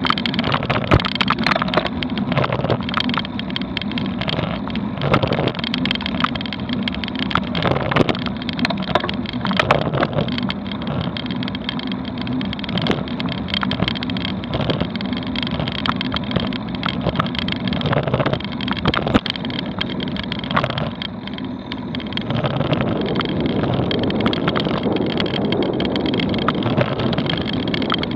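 Ride noise picked up by a bicycle-mounted action camera: a steady rumble of road and wind noise, broken by many small clicks and knocks as the bike and camera mount jolt over the road surface. It grows a little louder and denser near the end.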